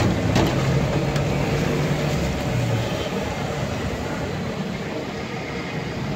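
Steady street noise of road traffic and running engines, mixed with the sizzle of potato fries deep-frying in hot oil. A couple of sharp metal knocks sound in the first second or so.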